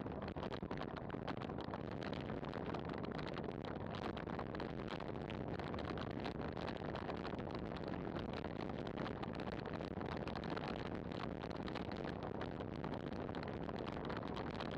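Steady rush of wind buffeting the microphone, mixed with road-bike tyre noise on asphalt, from a road bike coasting downhill at around 50 km/h.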